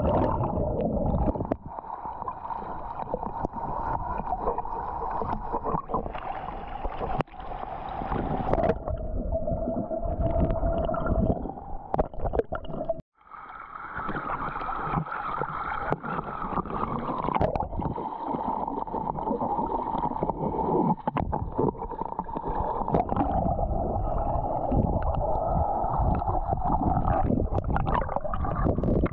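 Muffled underwater water noise with a steady droning hum, cutting out for a moment about 13 seconds in.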